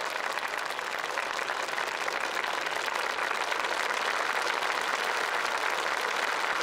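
A crowd applauding, a steady dense clapping throughout.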